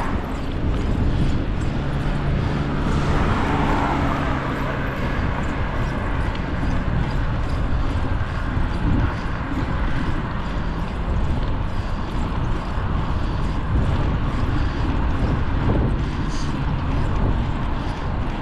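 Steady rush and rumble of wind over the microphone of a moving bicycle, with road traffic mixed in.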